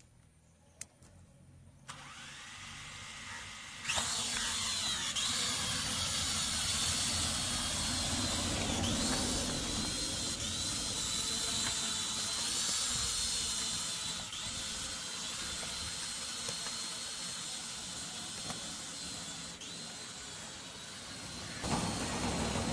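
Small foldable quadcopter drone's electric motors spinning up about two seconds in, then a loud high-pitched whine from about four seconds as it lifts off and flies, dipping briefly in pitch a few times as the throttle changes.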